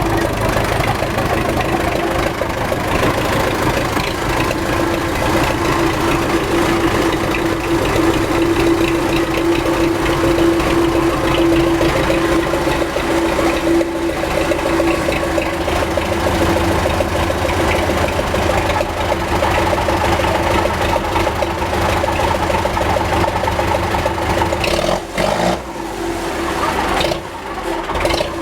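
MTZ tractor's diesel engine running with a steady hum from the gearbox, which the mechanic blames on failed 212 bearings in the reduction gear. The sound breaks up and drops in level about three seconds before the end.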